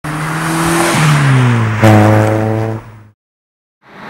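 A car engine held at steady revs with a roar over it. The pitch sags about a second in, then jumps with a sharp crack at about two seconds and holds. It fades and breaks off into silence just after three seconds.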